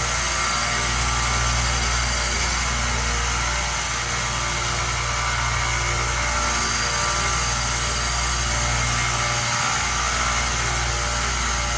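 1x30 belt sander running steadily, its motor humming, used for knife sharpening and polishing.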